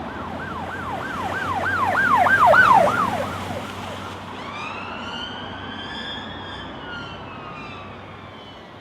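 Ambulance siren on a fast yelp, about three falling swoops a second, growing louder for about three seconds. It then switches to a slow wail that rises and falls and fades away, over a low traffic rumble.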